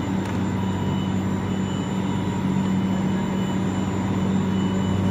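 Cable car station's drive machinery running with a steady mechanical hum.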